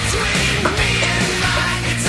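Loud hard-rock or metal music track with distorted guitars and a steady beat.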